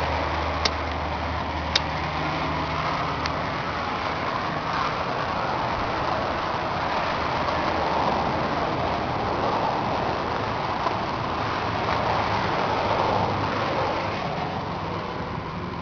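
John Deere 2755 tractor's four-cylinder turbo diesel idling steadily, with a few light clicks in the first few seconds.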